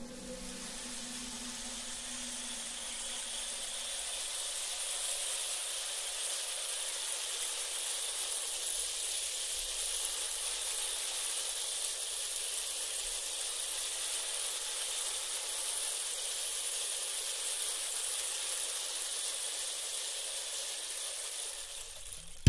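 A steady, even high-pitched hiss with no speech or music.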